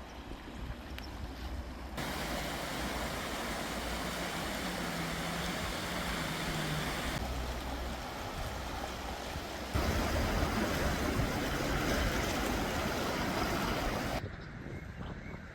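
Rushing river water, heard as a loud even noise in several cut-together shots that start and stop abruptly. A low steady hum sits under it for a couple of seconds in the middle.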